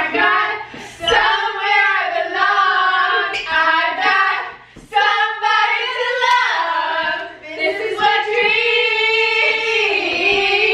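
Several women singing together with no music behind them, holding long notes in high voices.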